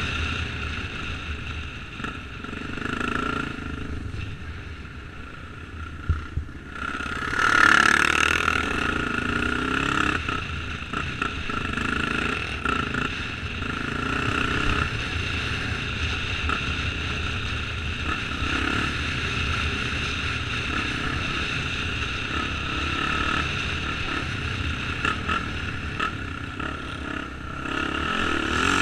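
Honda XR enduro motorcycle's single-cylinder four-stroke engine running while riding a dirt track, the throttle opening and easing off. A sharp knock comes just before a loud surge about a quarter of the way through.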